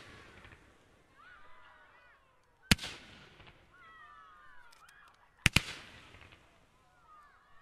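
Fireworks battery firing comets: two sharp bangs about three seconds apart, the second a quick double, each echoing briefly. Between the bangs a flock of geese honks in many short, overlapping calls.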